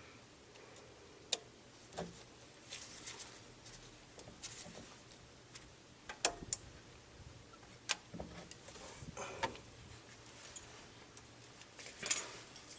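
Scattered sharp metal clicks and light scraping as snap ring pliers work the inner snap ring out of an A/C compressor clutch pulley.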